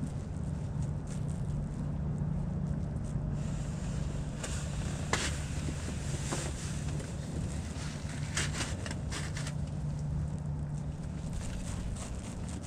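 Strong wind buffeting the microphone: a steady low rumble, with a few short crunching clicks around the middle.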